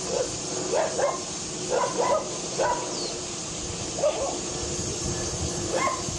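A dog barking in a series of short barks, about eight in all, with a pause of over a second around the middle.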